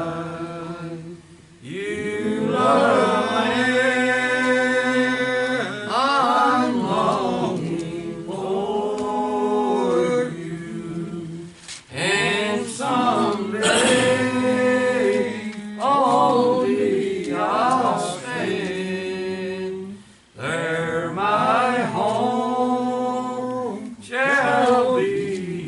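Church congregation singing a hymn a cappella, in slow, drawn-out phrases with short breaks between lines.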